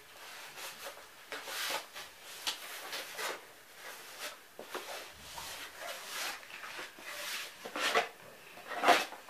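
Corrugated cardboard being handled, bent and folded by hand: a string of short scraping, rubbing rustles, with two louder scrapes near the end.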